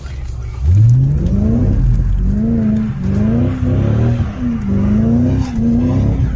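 Mercedes CLK's naturally aspirated 306-horsepower V8 revving hard: its note climbs steeply about half a second in, then rises and falls several times before dropping away at the end.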